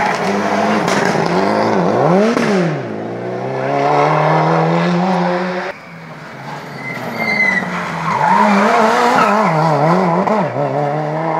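Rally car engine taking a hairpin: the revs dip and rise sharply as it brakes and turns, then climb steadily as it pulls away. After an abrupt cut, a second rally car's engine revs up and down repeatedly through the bend.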